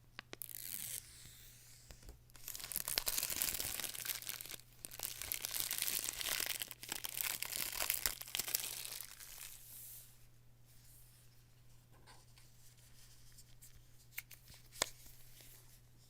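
Packaging on an iPad Pro box being torn open and unwrapped, in three long tearing, crinkling stretches, then softer handling noises and a single sharp click near the end.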